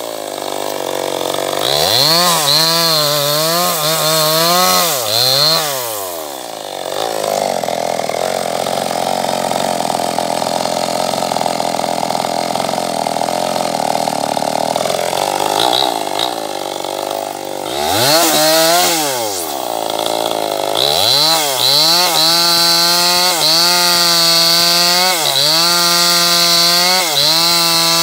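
Two-stroke chainsaw cutting through a felled log, revving up and down at first. In the middle it runs steadily at a lower speed for several seconds while it is set down. Then it revs back into the cut, its pitch dipping over and over as the chain bites into the wood.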